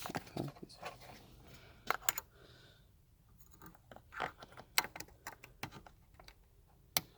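Scattered sharp clicks and short scrapes of plastic and wire being handled as a seat belt buckle's wiring is worked through a hole in a car seat.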